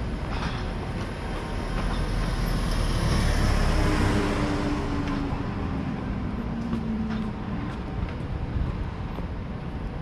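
Street noise from a vehicle passing by, growing louder about three to four seconds in and then fading with a faint engine tone that drops slightly in pitch, over a steady low rumble of wind on the microphone.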